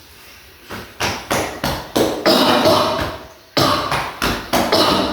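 A hand clapping repeatedly on a patient's back, about three claps a second with a short pause midway. This is chest percussion to loosen sputum so it can be coughed up.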